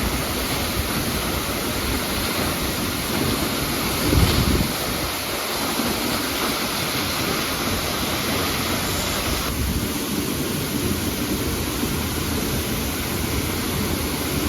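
Waterfall rushing: a steady, dense roar of falling water. About four seconds in there is a brief, louder low rumble.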